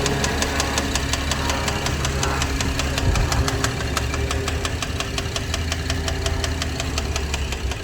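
2011 Camaro engine idling with a fast, even ticking tap over its steady hum, which the owner takes for a bad lifter, heard after a new timing chain was fitted.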